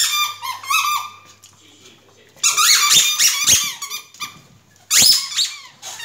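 A squeaky toy ball squeaking rapidly as a puppy chews it. The squeaks come in three bursts: one at the start, a longer one in the middle, and a short one near the end. Many of the squeaks rise in pitch.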